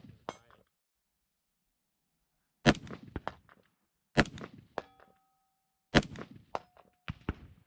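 AR-15 rifle firing single shots about a second and a half apart. A moment after some shots comes the ring of a steel target being hit downrange.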